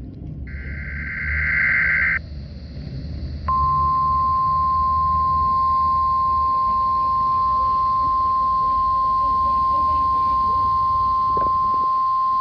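Weather radio alert signal: a short buzzing burst of digital SAME header data, then hiss, then the steady, single-pitch weather radio warning alarm tone, which starts about three and a half seconds in and holds without change. Low static runs underneath. The alarm tone is the lead-in to a required monthly test broadcast.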